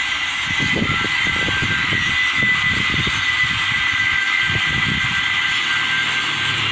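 A dompeng (Dongfeng-type) single-cylinder diesel engine running steadily and loud, with a constant high whine over dense mechanical noise.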